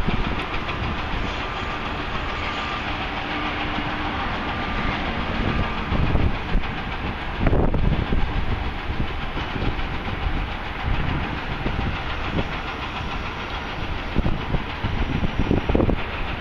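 Strong, gusting wind buffeting the camera microphone: a continuous rushing noise with heavy, uneven low thumps as the gusts hit, strongest about halfway through and again near the end.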